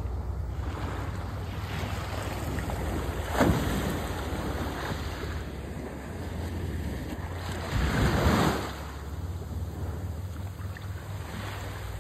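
Small waves lapping and washing on a sandy shoreline, with wind rumbling on the microphone. Two louder surges come through, a short one about three and a half seconds in and a longer one around eight seconds.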